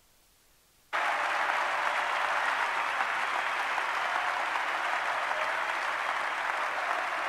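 Large arena crowd applauding steadily after near silence, starting abruptly about a second in.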